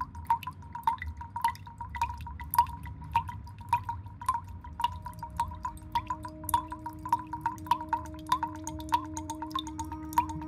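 Irregular, rapid dripping plinks, each ringing briefly at about the same pitch. About halfway through, a steady low drone comes in with a second, higher tone and holds.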